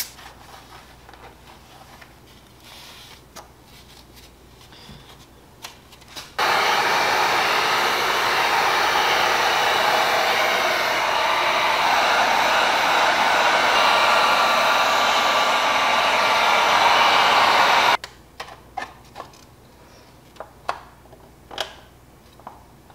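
Electric heat gun switched on about six seconds in, blowing steadily for about eleven seconds and then switched off abruptly. It is heating the tail light housing to soften its glue. A few light handling clicks come before and after.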